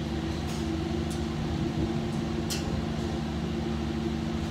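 Steady mechanical hum at a driving range, with three sharp cracks of golf clubs striking balls in neighbouring bays, about half a second, one second and two and a half seconds in.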